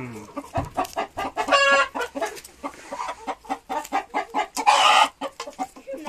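Hens clucking and pecking at a pile of fresh grass and horsetail shoots: a run of short clucks and taps, with a drawn-out call about a second and a half in and a louder, harsher call just before five seconds.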